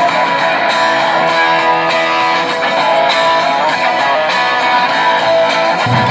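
Guitar music playing, with many held notes. Just before the end a deeper, low-pitched sound comes in.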